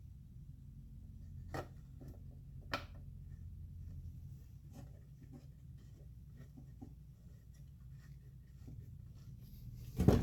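A torque wrench and hand tools being handled on a vacuum pump's bolts: two sharp clicks, scattered small ticks and a louder knock near the end, over a low steady hum.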